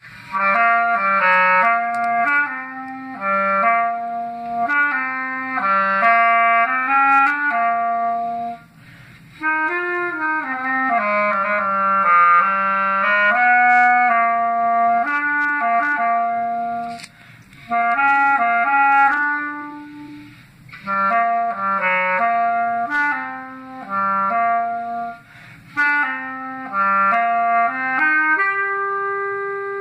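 Solo clarinet playing a melody in phrases of quick moving notes, with short gaps between phrases and a long held note near the end.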